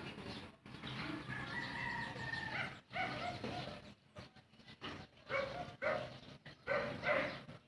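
A dog barking repeatedly, short barks about two a second from about five seconds in, after one long drawn-out animal call near the start.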